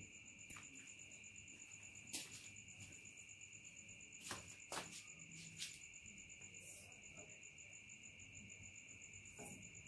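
Faint steady chirping of crickets, a high pulsing trill over a lower steady tone, with a few soft knocks and clicks about two, four and a half and five and a half seconds in as a cut car tyre is handled.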